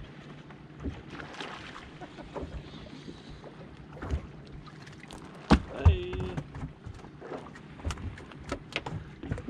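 Bass-boat bow trolling motor holding a steady low hum while an angler casts and reels from the front deck, with scattered light clicks and knocks of rod, reel and feet on the deck. Two loud thumps come a little past halfway.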